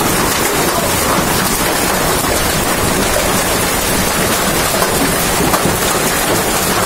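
Heavy rain with hail pelting down, a loud, steady hiss made of countless small impacts.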